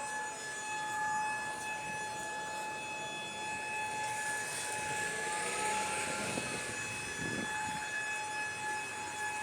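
Outdoor public warning siren sounding a test, holding one steady tone throughout, with a fainter second tone gliding up and down behind it.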